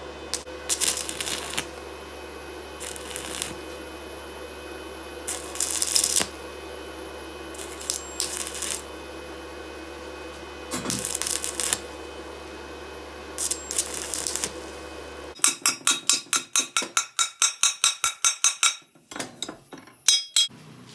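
Arc welding on steel square tube: about six short bursts of crackling arc, each under a second, every two to three seconds, over a steady welder hum. About three-quarters of the way through the hum stops and a fast run of sharp metallic taps follows for a few seconds, then a few scattered taps.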